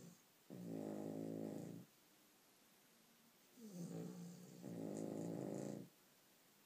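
Sleeping dog snoring loudly: two long snores, each a rasping pitched drone well over a second long, the second starting about three and a half seconds in with a shorter lead-in before its main drone.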